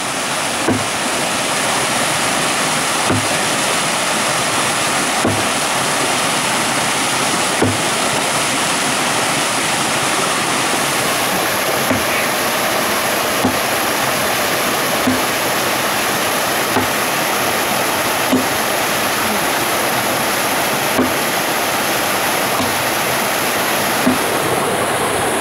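Steady rush of a waterfall, with a Gränsfors Bruk Ray Mears Wilderness Axe biting into a log about every two seconds, some eleven blows in all; the water is the louder sound.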